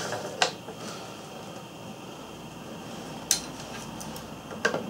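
Quiet handling noise from hand saddle-stitching leather with two needles and waxed thread. Three short clicks sound over soft room noise: one about half a second in, one past the middle and one near the end.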